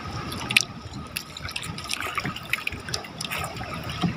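Water splashing and trickling, with many small scattered clicks and knocks.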